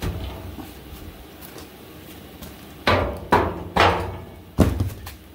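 Sharp metallic knocks with short ringing tails on a steel 4-link suspension bracket as it is worked into place against the truck's frame rail. One knock comes at the start, then four in quick succession about three seconds in.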